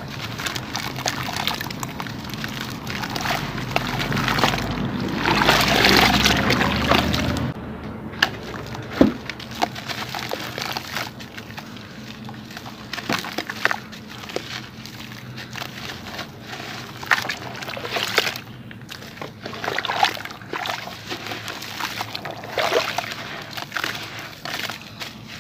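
Hands crumbling wet sand-cement chunks in a bucket of water: gritty crunching with sloshing, splashing and trickling water as crumbs and water stream back into the bucket. The densest, loudest stretch comes about four to seven seconds in, followed by scattered small crunches and clicks.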